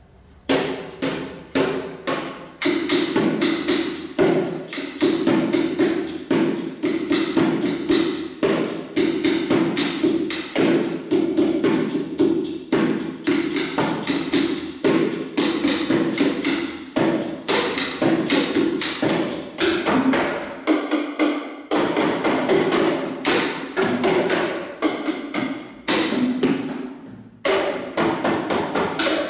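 Plastic buckets played as percussion instruments, struck in a fast, busy rhythm by several players. The playing starts about half a second in.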